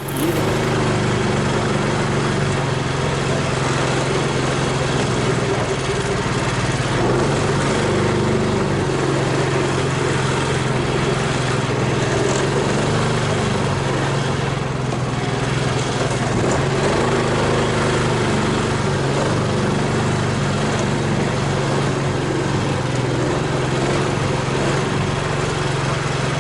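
Engine of a homemade all-terrain vehicle on low-pressure tyres running steadily at a constant speed.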